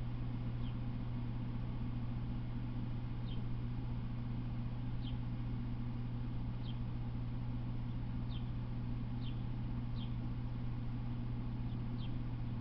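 A steady low hum, with a small bird's short, high, falling chirp repeated every second or two.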